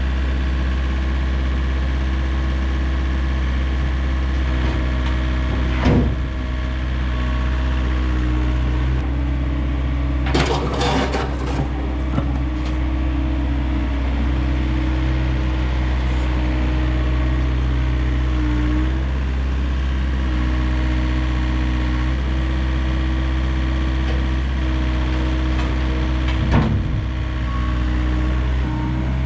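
Heavy diesel engine running at a steady speed, a low drone with an even pitch. A knock sounds about six seconds in, a short clatter of impacts follows around ten to twelve seconds in, and another knock comes near the end.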